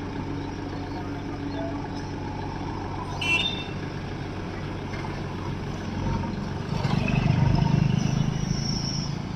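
Diesel engine of a JCB backhoe loader running steadily as it digs and loads soil. It works harder and louder for a second or two about seven seconds in, as the loaded arm lifts. There is a brief sharp clank about three seconds in.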